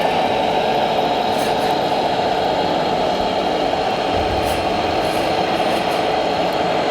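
Radio-controlled scale model truck running with a steady engine-like drone, with a short low bump about four seconds in.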